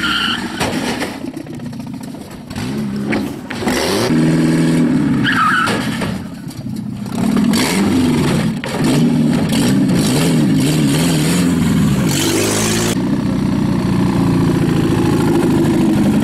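Engine of a roll-caged VW Golf running and being revved as the car drives, its pitch rising and falling again and again, with rough noise over it.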